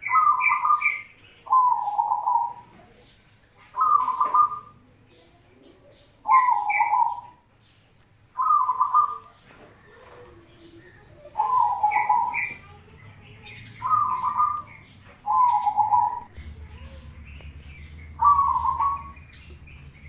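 Zebra dove (perkutut) cooing: about nine phrases spaced roughly two seconds apart, several opening with quick high staccato notes before a lower rolling coo. A steady low hum comes in near the end.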